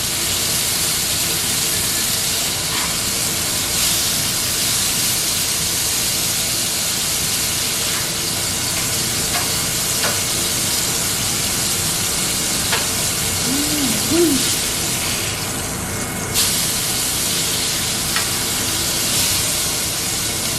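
Beef burger patties sizzling in a hot skillet: a steady frying hiss, with a few light clicks here and there.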